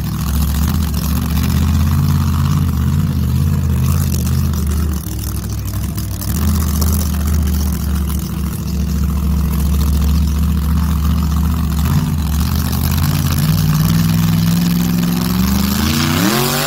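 Monster truck engine running with a heavy low rumble that wavers in speed, then revving up with a rising pitch near the end.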